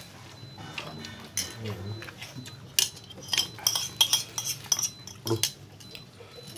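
Plates and a serving spoon clinking as people eat: a flurry of light, sharp clinks, bunched from about three seconds in until about five and a half seconds.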